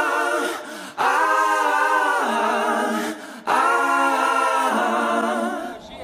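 A cappella vocal music: voices holding sustained sung chords in long phrases, breaking off briefly about a second in and again a little past three seconds.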